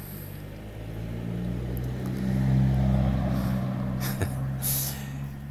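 A motor vehicle's engine hum that grows louder about two seconds in and then fades, as it passes. A brief hiss about four seconds in.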